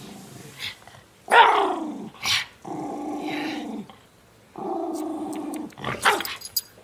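Miniature schnauzer growling while guarding his toy: a loud sudden bark about a second in, then two long steady growls of about a second each, and short outbursts near the end.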